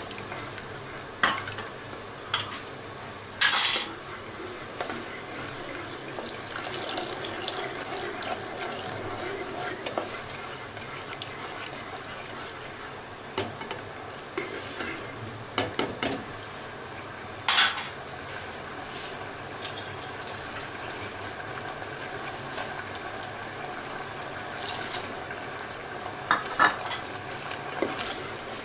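A spatula stirring a sauce thickened with corn flour in a non-stick pot, scraping and knocking against the pot now and then, over a steady bubbling of the simmering sauce.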